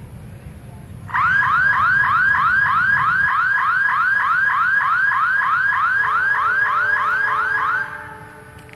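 Electronic alarm sounding a rapid series of rising chirps, about three a second, starting abruptly about a second in and cutting off suddenly some seven seconds later.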